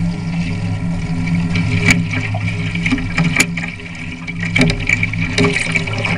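Water rushing and splashing against the hull of a Mini40 RC trimaran sailing through chop, picked up by a camera mounted on the boat, over a steady low hum. Sharp slaps of water or spray break in several times.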